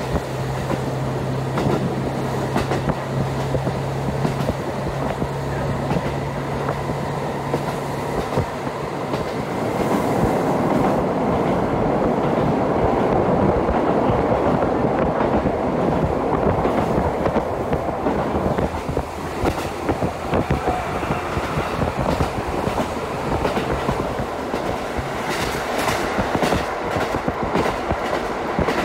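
Diesel train running along the line, heard from inside the carriage. A low engine hum comes first, then a louder rumble in the middle, and near the end a quick run of clicks as the wheels pass over rail joints.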